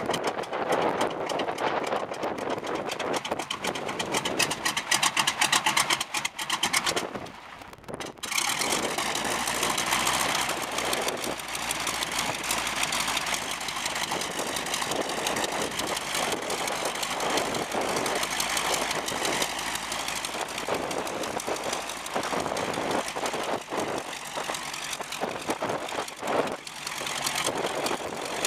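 North American T-6 Texan's radial engine starting: it fires unevenly in a rapid ragged stutter for about eight seconds, with a short drop about seven seconds in, then catches and runs steadily at idle.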